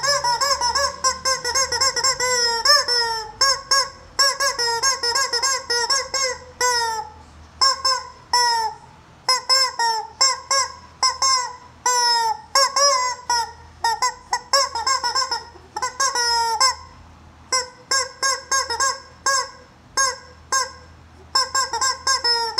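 Yellow rubber screaming-chicken toy squeezed over and over, giving short squawks in quick succession, several a second, with a brief pause about three-quarters of the way through.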